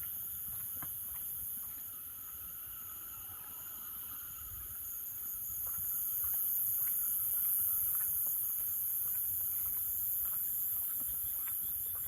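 Night chorus of insects, a steady high-pitched trill throughout, with frogs calling in short repeated notes over a low rumble.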